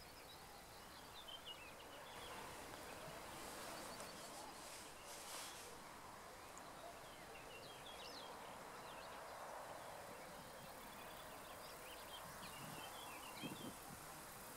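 Faint outdoor background noise: a steady, even hum with scattered short bird chirps coming and going throughout.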